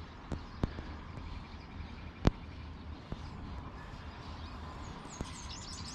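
Faint outdoor ambience with a few distant bird chirps, broken by a handful of sharp clicks, the loudest a little over two seconds in.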